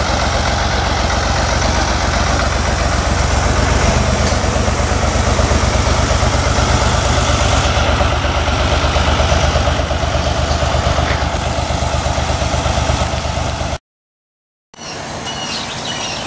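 Farm tractor engine running steadily with an even low throb. It stops abruptly at a cut near the end, and a few birds chirp in the quieter outdoor air that follows.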